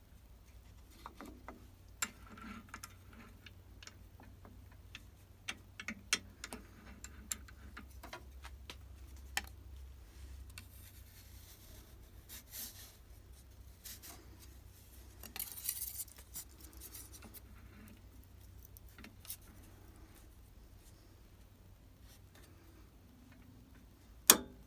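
Scattered light clicks and taps of tools and small parts being handled, with one sharp click near the end, over a low steady hum.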